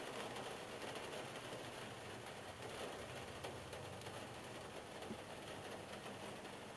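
Rain falling on a car's roof and windshield, heard from inside the cabin: a steady patter of many small drop ticks, with a low steady hum underneath.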